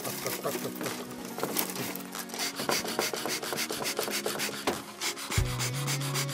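Rubbing and scraping as a beekeeper's bee smoker is handled and stuffed with cardboard fuel: a run of quick dry scratchy strokes, over background music with held notes.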